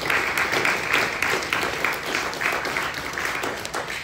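Congregation applauding, many hands clapping in a dense, steady patter.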